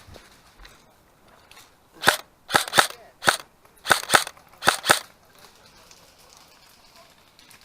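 Airsoft gun firing about seven single shots, irregularly spaced and some in quick pairs, over roughly three seconds starting about two seconds in.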